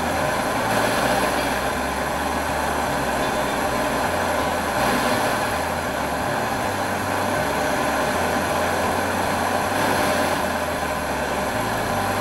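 Butane torch on a CB cassette gas canister burning with a steady roaring hiss, its flame unsteady and weakening at times. The owner suspects this comes from using a brand-new canister.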